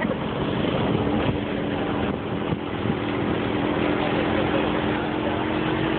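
Engine of a moving vehicle running steadily, with a low hum under a dense rush of wind and road noise, as heard from the open back of the vehicle.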